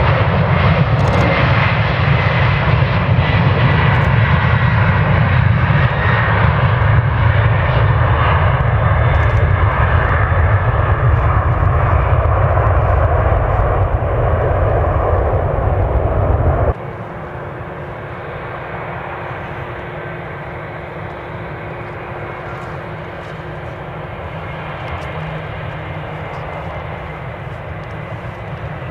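Boeing 767-300ER jet engines at takeoff power, a loud, deep rumble as the airliner rolls down a wet runway and climbs away. About 17 s in the sound cuts off abruptly to a much quieter jet engine sound from an Airbus A321 beginning its takeoff roll, growing louder near the end.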